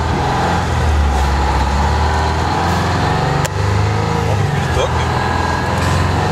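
Kenworth K100C cab-over truck's Detroit diesel engine running under way, a steady low drone heard from inside the cab. A sharp click comes about halfway through, after which the engine note sits a little higher.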